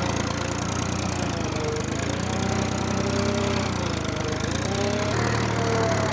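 Tractor engine running steadily while ploughing, with a higher wavering tone gliding up and down above it.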